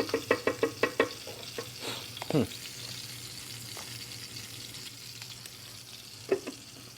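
Venison loin sizzling steadily as it sears in a hot pan. Over it, a quick run of scraping, clicking strokes, about seven a second, through the first second, and a short falling squeak about two seconds in.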